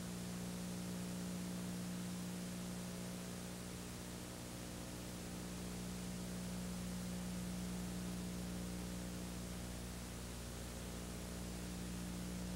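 Steady hiss with a low electrical hum underneath: recording noise, with no distinct sound events.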